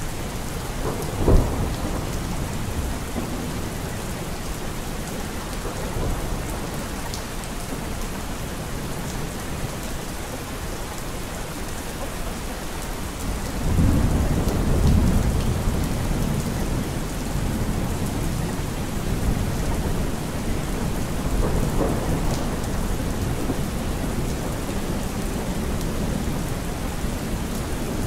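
Steady rain with thunder: a sharp thunderclap about a second in and a long low rumble of thunder about halfway through.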